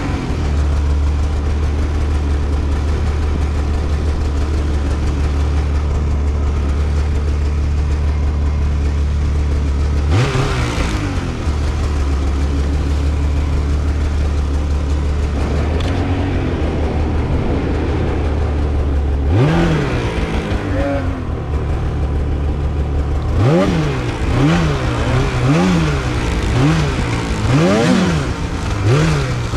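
Polaris Khaos Slash 9R snowmobile's two-stroke engine running under a steady drone. The throttle is opened sharply twice. Over the last several seconds it is revved up and down about once a second.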